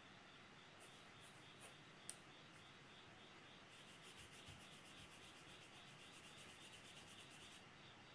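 Faint graphite pencil scratching on drawing paper: a few light ticks of the pencil tip, then from about four seconds in a fast run of short back-and-forth hatching strokes that stops shortly before the end.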